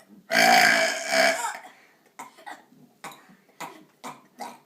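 A long, loud, deliberately forced burp lasting about a second and a half, followed by several short, much quieter sounds.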